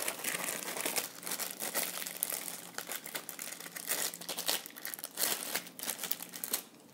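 Plastic zip-top bag crinkling and crackling as it is handled and opened; it dies down near the end.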